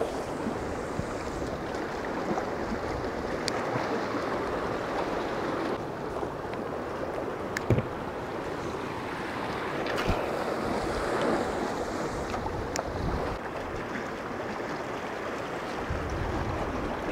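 Ocean surf washing steadily against a rocky shore, with wind buffeting the microphone. A few sharp clicks stand out, the loudest about eight seconds in.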